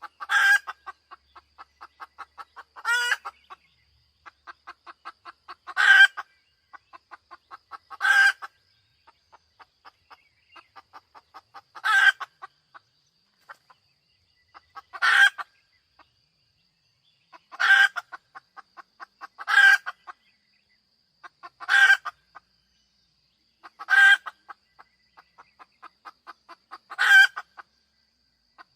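Hen cackling: runs of quick short clucks, each building to a loud drawn-out squawk, repeated every two to four seconds.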